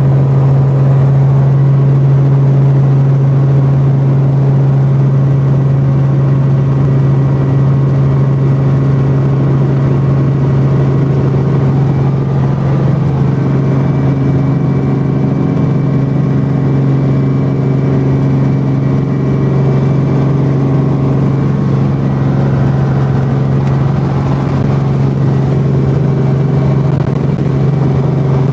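Small helicopter's rotor and engine heard from inside the cabin during takeoff and low flight: a loud, steady low drone.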